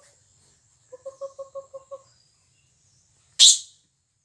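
Baby monkey giving a frightened cry: a fast run of short, even squeaks, about seven a second, lasting about a second. Near the end a single short, sharp hiss is the loudest sound.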